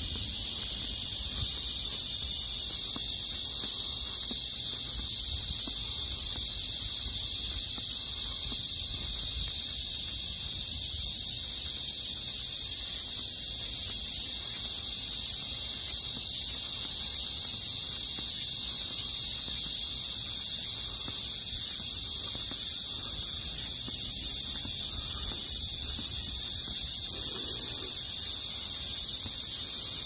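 Steady, high-pitched chorus of insects, unbroken throughout, with a low rumble underneath.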